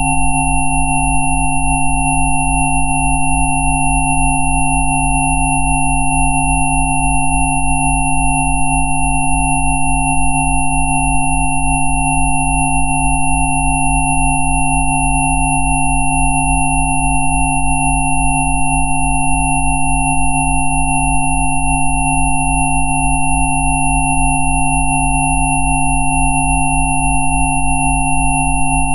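Layered, steady electronic sine tones at several pitches sounding together, from a low pulsing hum up to a thin high whistle, held unchanged: a synthesized 'Rife frequency' tone track.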